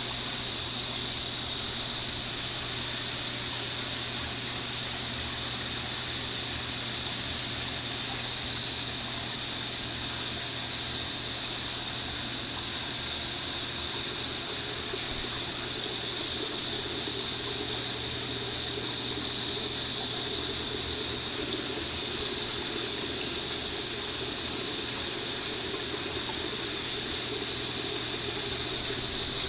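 Aquarium pump and water flow running steadily, a constant low hum and a high whine under a wash of moving water.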